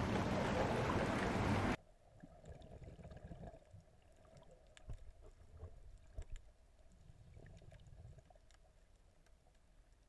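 Loud steady rushing of sea surf with wind on the microphone cuts off abruptly after about two seconds. It gives way to faint, muffled underwater sound picked up by a snorkeler's camera: a low rumble with scattered small clicks and a few dull thumps near the middle.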